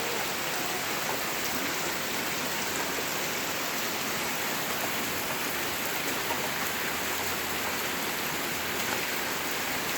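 Steady rain falling from a tropical storm: an even hiss that holds level throughout.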